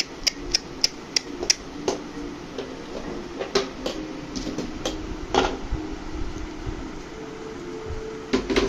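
A steady low mechanical hum, with a quick run of sharp clicks in the first two seconds and a few more scattered clicks later.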